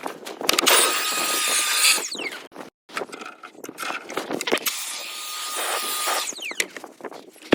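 Two long hissing blasts, each about a second and a half, from a jet used to clean a hay baler, with a faint steady whistle in the hiss and knocking and rattling in between.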